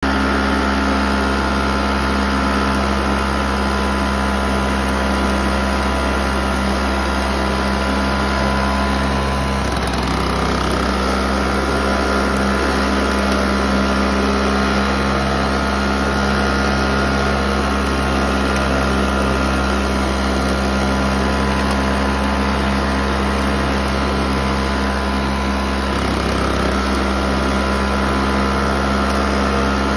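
Flymo petrol hover mower's small engine running steadily while the mower is pushed over grass, its note wavering briefly twice, about a third of the way in and again near the end.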